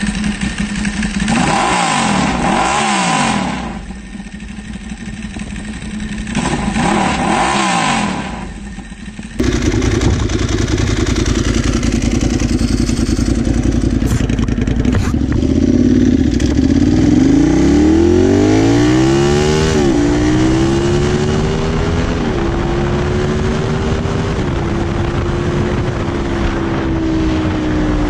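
Ducati 1098's L-twin engine with a modified exhaust. It first idles with two throttle blips that rise and fall in pitch. Then, under way, it pulls hard with pitch climbing, upshifts about three times, and settles to a steady cruise with wind noise.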